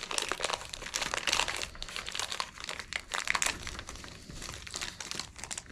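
Packaging crinkling and crackling in irregular bursts as it is handled and worked open by hand.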